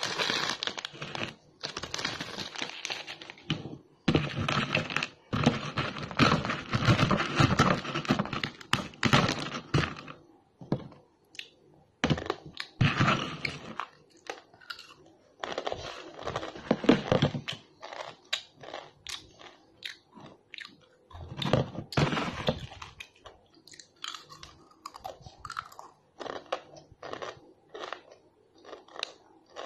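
Crinkling of a plastic Mamee snack packet and rustling of dry instant-noodle pieces as the seasoning powder is shaken over them, making a dense crackly rustle for the first third. In the last few seconds comes a run of short, crisp crunches as the dry noodle snack is chewed close to the microphone.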